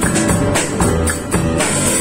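Pearl acoustic drum kit played with sticks in a steady rock beat, over a recorded backing track.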